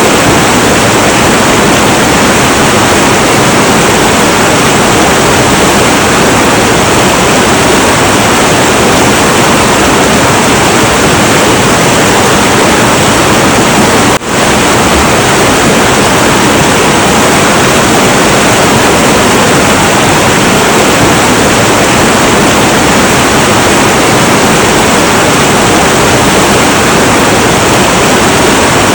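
Heavy, turbulent river water rushing in a loud, steady roar, with a brief dropout about halfway through.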